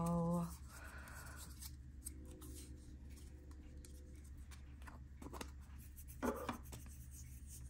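Faint handling and rubbing sounds as fingers work cream from a small round pot onto dry fingertips, with a soft scuff about a second in. A low steady hum runs underneath.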